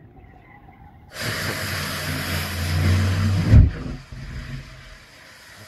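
Argus pulse jet of a V1 flying bomb briefly firing on its test stand: a sudden loud, steady low buzz with a hiss for about two and a half seconds, ending in a bang. A quieter hiss of air follows and then cuts off abruptly.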